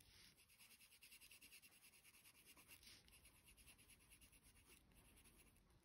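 Faint scratching of a coloured pencil shading on paper in quick, even back-and-forth strokes.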